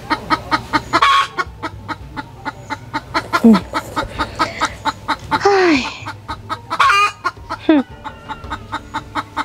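Chickens clucking in a rapid, even run of short clucks, with several louder calls that drop in pitch.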